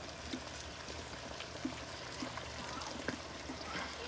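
Tomato sauce glugging out of a can into a hot skillet of ground beef and elbow noodles, over a steady hiss from the pan, with a few light clicks of a utensil against the can.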